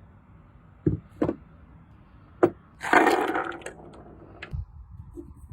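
A few sharp clicks and knocks, then about half a second of loud rustling noise, followed by a low knock.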